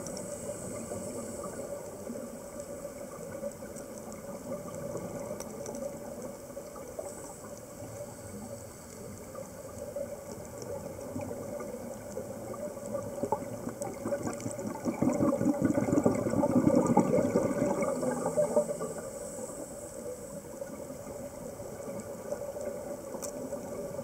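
Underwater sound picked up by a dive camera: a steady hiss and hum, with a scuba diver's exhaled regulator bubbles gurgling louder for a few seconds about two-thirds of the way in.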